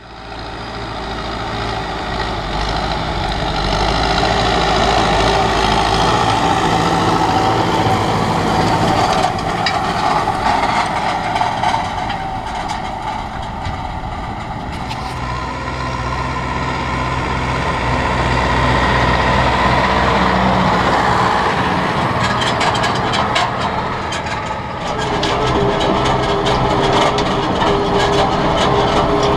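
Farm tractor's diesel engine fades in, then runs steadily under load while pulling a field cultivator through dry soil. Clicks and rattles from the implement come in during the second half.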